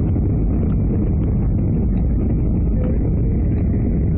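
Steady, muffled low rumble of an Airbus A319's cabin and engine noise during the descent, heard through a covered microphone.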